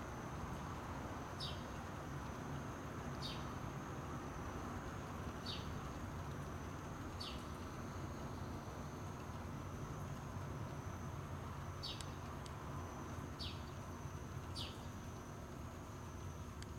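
A bird gives seven short high chirps, each sliding downward, at irregular gaps of one to four seconds, over a steady low rumble and a thin, steady high whine.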